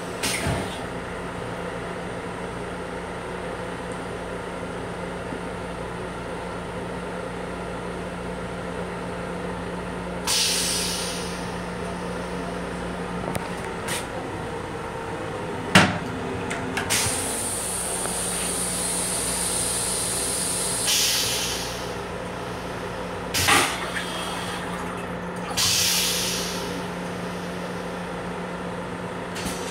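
Steady hum of a Long Island Rail Road M7 railcar's equipment heard from its restroom, with short bursts of hissing air about ten, twenty-one and twenty-six seconds in and a few sharp clicks, the loudest about sixteen seconds in.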